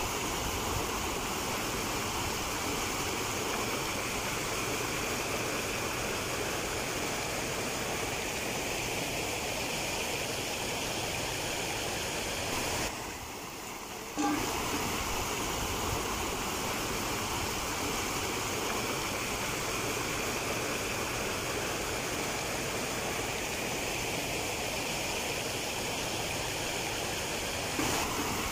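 River water rushing over rocks, a steady noise that dips briefly about halfway through.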